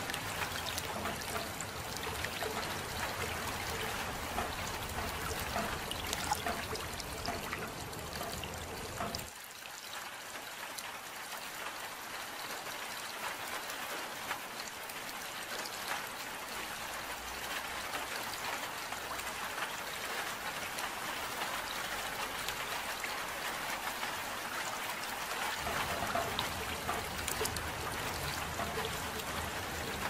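Steady rain falling as a hiss of patter and trickling water. The deeper low layer beneath it drops away abruptly about nine seconds in and comes back near the end.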